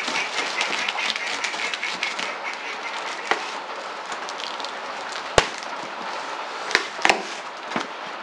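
Knife slitting packing tape along the seam of a cardboard box: a crackling, scratchy scrape of tape and cardboard, with a few sharp clicks in the second half.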